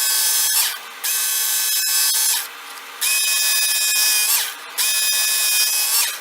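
Work Sharp Knife & Tool Sharpener's electric belt running in short bursts, with a high whine and belt grinding on the knife blade, as the blade is drawn through on the 220-grit belt one pass at a time. The whine winds down between passes, four times.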